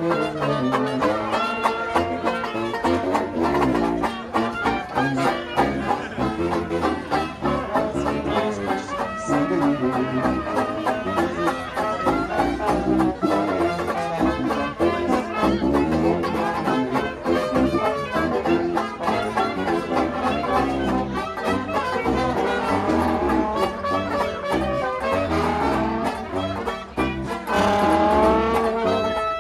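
Traditional jazz street band playing live as it walks: a banjo strumming a steady beat under a trombone and other brass.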